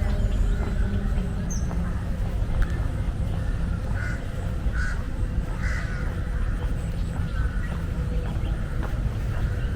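City park ambience: a steady low rumble of distant traffic, with a few short bird calls. Three calls come close together about four to six seconds in.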